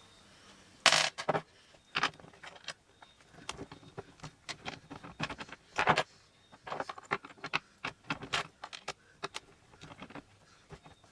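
Irregular metallic clicks, clinks and scrapes as a skateboard's truck bolts and nuts are worked loose and handled, with the sharpest clinks about one second in and about six seconds in.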